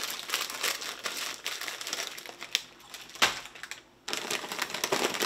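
A plastic potato-chip bag crinkling and rustling as it is handled, in quick irregular crackles. A single sharp knock and a short lull come a little past three seconds, and then the crinkling starts again.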